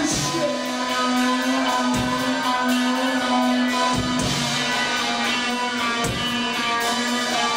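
Nu-metal band playing live, heard from the audience: a held note rings on steadily while heavy full-band hits land about every two seconds.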